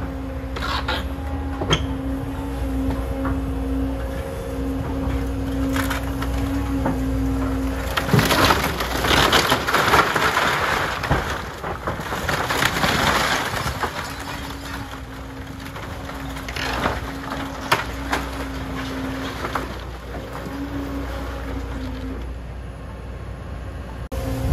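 Caterpillar excavator running with a steady engine-and-hydraulic hum while it tears into a wood-frame house. Scattered sharp cracks give way, from about 8 to 14 seconds in, to a long stretch of crunching and crashing as walls and roof timbers break and collapse.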